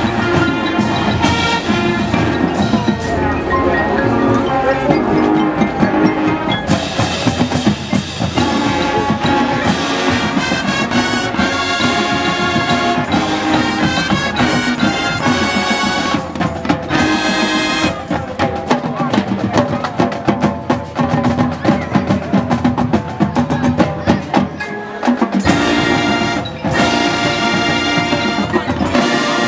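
Marching band playing, with brass over drums and front-ensemble mallet percussion such as marimba and xylophone, with a short break near the end before the music resumes.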